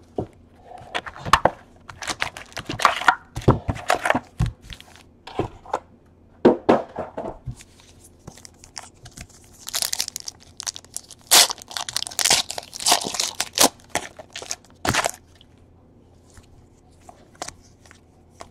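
Trading-card box and packs being torn open by hand: a run of tearing, crinkling and crackling wrapper and cardboard sounds, thinning to a few light clicks near the end.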